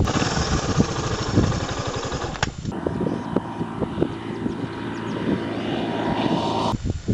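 Motorcycle engines running, mixed with wind noise on the microphone; the sound cuts abruptly to a different recording about a third of the way in and again near the end.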